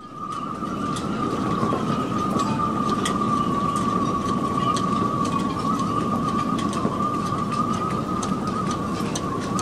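Gale-force wind whistling through a boat's rigging: a steady, slightly wavering high whistle over a low rushing rumble, with scattered small ticks. It swells up over the first second.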